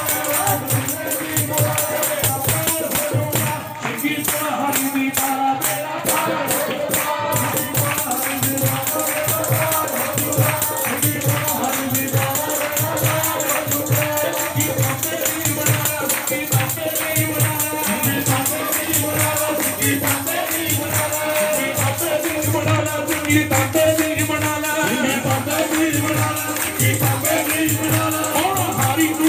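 Live Punjabi devotional music: singing over a steady low drum beat, with the metallic jingling of a chimta (long tongs with jingle rings) and hand-clapping.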